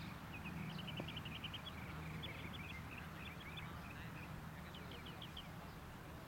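Small birds chirping in quick runs of short, high repeated notes over a steady low rumble.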